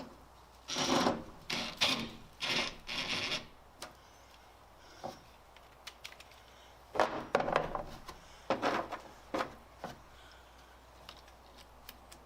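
Two runs of short rubbing, scraping strokes, about four in each, the first a second in and the second about seven seconds in: hand work on the truck's tailgate hardware.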